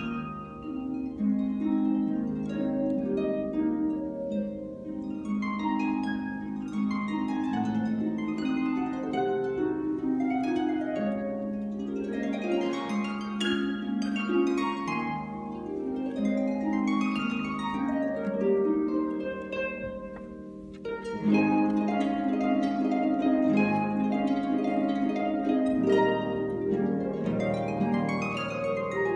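Solo concert pedal harp playing a fast piece of sweeping arpeggios that repeatedly rise and fall across the strings. The playing softens briefly about two-thirds of the way through, then comes back louder and fuller.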